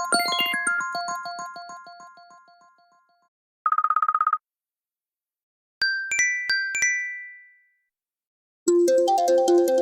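Several iPhone alarm tones played one after another, with short silences between them. First a run of bell-like chime notes fades out over about three seconds, then a brief rapidly pulsing electronic beep, then three ringing dings, and near the end a new synthesized alarm melody begins.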